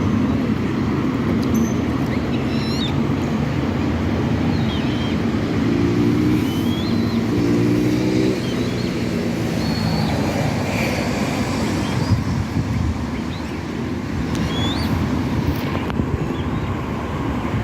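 Steady traffic rumble, with scattered short high chirps of small birds over it and two brief low tones several seconds in.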